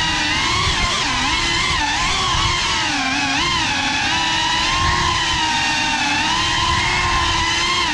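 FPV drone's brushless motors and propellers whining, the pitch rising and falling with the throttle as it manoeuvres.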